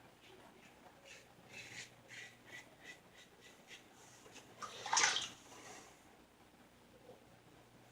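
Water splashing at a sink: a run of short splashes, about three a second, then a louder splash about five seconds in, as water is scooped onto the face to rinse after the shave.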